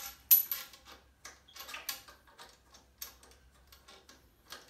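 Irregular small clicks and light metallic rattles of a flexible water hose and its threaded fitting being handled and screwed onto a toilet's water inlet connection. The sharpest click comes about a third of a second in.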